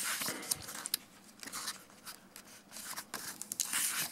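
Paper pages of a book being flipped through by hand: a run of rustles and quick page flicks, busiest in the first second and again near the end.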